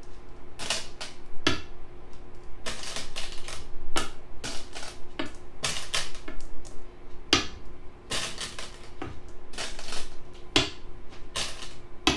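Rapid, irregular clicking, about two to three clicks a second, as the moves of a Go variation are placed one after another, over a faint steady hum.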